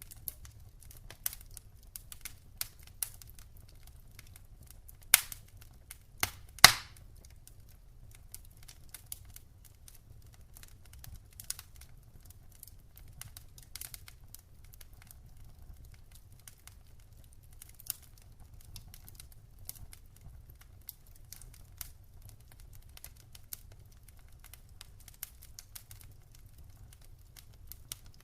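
Wood fire crackling in a fireplace: irregular small snaps and ticks over a low steady rumble, with a few louder pops, the loudest about five and six and a half seconds in.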